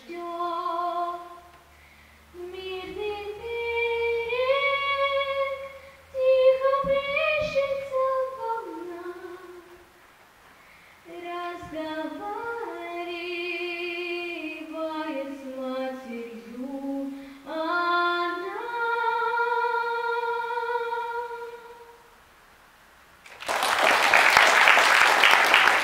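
A boy with an unbroken, high voice sings the closing phrases of a slow Russian song into a microphone, in long held notes with vibrato and short pauses between lines. About 23 seconds in, the audience breaks into applause.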